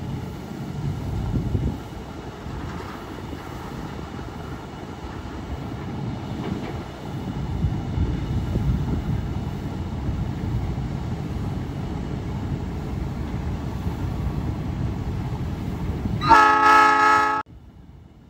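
ALCO RS-1 locomotive's turbocharged six-cylinder ALCO 539 diesel running with a steady low rumble. Near the end, one short horn blast of about a second, the loudest sound, cut off abruptly.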